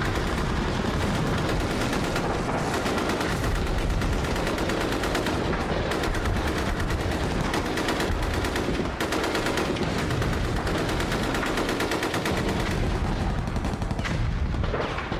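Battle sound effect of sustained rapid machine-gun fire, shot after shot with no break, over a low rumble.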